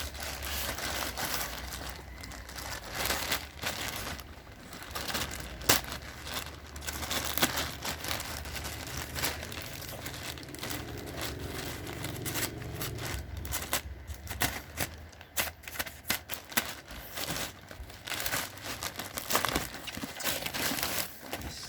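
Headphone packaging being handled and opened: crinkling wrap and cardboard, with many scattered sharp clicks and taps.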